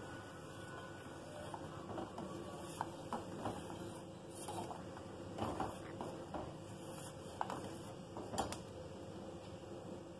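Steel ladle stirring vermicelli-and-sago milk pudding in a stainless-steel pot, with scattered light clinks and scrapes of the ladle against the pot over a steady low hiss.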